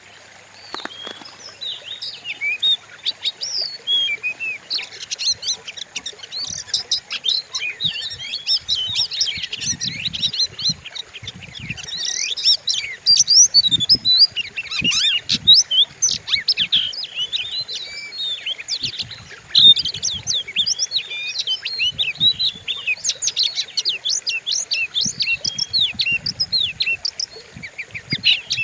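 Oriental magpie-robin (kacer) singing a fierce, rapid song of quick chirps and sweeping whistled notes, without a break. This is the kind of song used as a lure to provoke another kacer into singing back.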